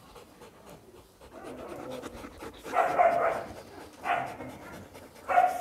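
Dogs panting close by as a group of German Shepherds crowds together, with three short dog vocal sounds: one about halfway through, one about a second later and one near the end.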